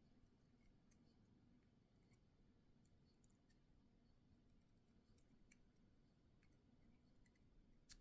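Near silence with faint, scattered small clicks from handling the tiny parts of an American Lock 1100 padlock core during pin reassembly.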